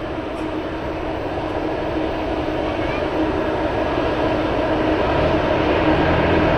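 Jet airliner engines running at low taxi power: a steady rushing noise with a hum, slowly growing louder. A low rumble joins in near the end.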